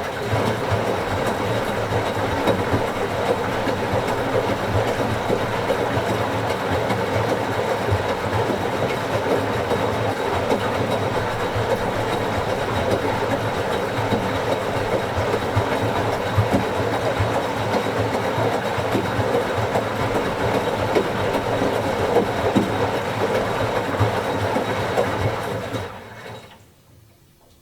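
Washing machine running, its drum turning with a steady, dense churning rumble and rattle; it starts abruptly and dies away about a second and a half before the end.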